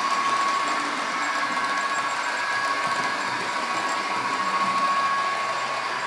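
Model train locomotive running steadily on its track: an even electric-motor whine holding one tone, over the hiss of wheels on rail.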